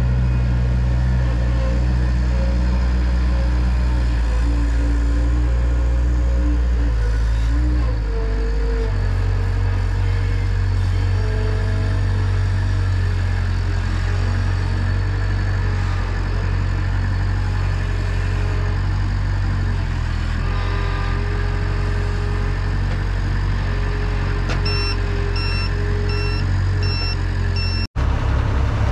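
Skid steer loader's engine running steadily while it picks up and carries round bales, its note shifting as it works. A short run of about five beeps comes near the end.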